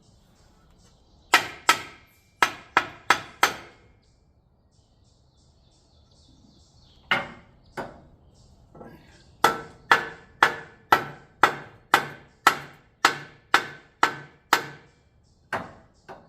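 Hammer blows, each with a short ring, hammering a fabricated part flat. A quick burst of about six strikes, a pause of a few seconds, then a steady run of about two blows a second.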